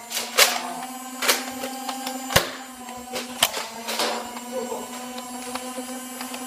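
Sharp plastic clacks and knocks from Nerf blasters being primed and fired, half a dozen at irregular intervals about a second apart, over a steady electrical hum.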